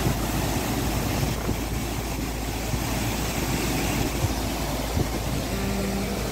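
A motor vehicle's engine running steadily, a low rumble under outdoor noise, with a few short steady tones near the end.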